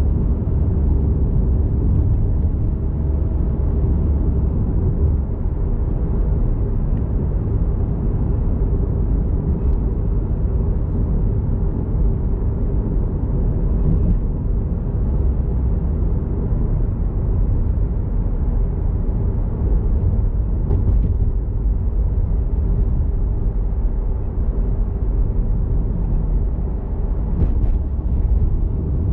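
A car driving: a steady low rumble of engine and road noise, with a few faint clicks.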